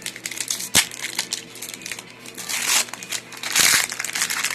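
Foil booster-pack wrapper and trading cards being handled, crinkling and rustling. There is a sharp click about a second in and two louder rustles near the end.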